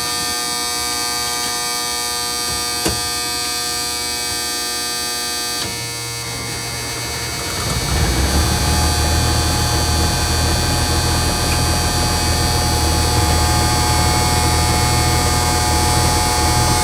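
M35A2 Deuce and a Half's multifuel turbo-diesel inline-six running steadily with a buzzing tone, heard from inside the cab just after a cold start. A sharp click comes about three seconds in. From about seven seconds in the engine grows louder and deeper, with more low rumble, and holds there.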